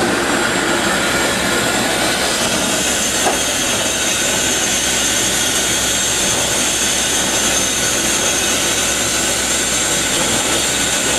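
Steady, loud hiss and rush of steam in the cab of Pere Marquette 1225, a 2-8-4 Berkshire steam locomotive, with a single light click about three seconds in.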